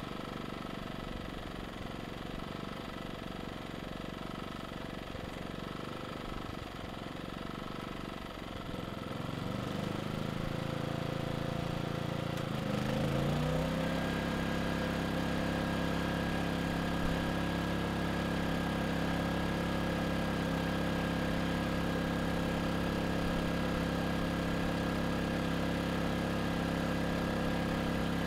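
Erayak 4500P inverter generator's engine idling low in eco mode. About ten seconds in, a 1500-watt space heater load comes on and the engine speeds up over a few seconds, then runs steadily at a higher pitch and somewhat louder under the load.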